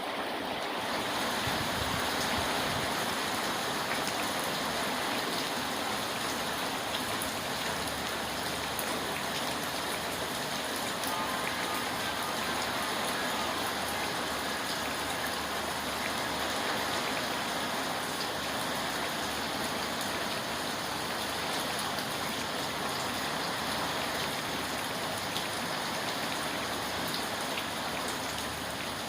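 Steady rain falling, an even hiss that barely changes, with the high end filling in about a second in.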